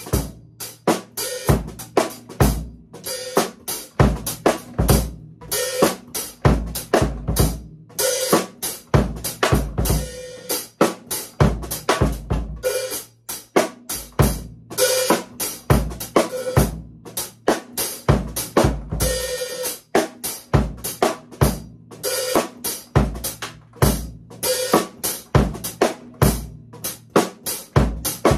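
A drum kit played in a steady groove: bass drum, snare, hi-hat and cymbal hits repeating evenly and without a break.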